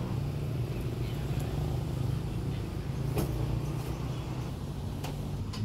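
A motor vehicle engine idling steadily with a low hum, with a couple of light knocks over it.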